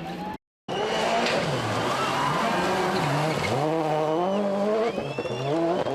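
A World Rally Car's turbocharged four-cylinder engine is driven hard. Its pitch climbs and then drops back at each gear change, several times over. There is a split-second dropout about half a second in.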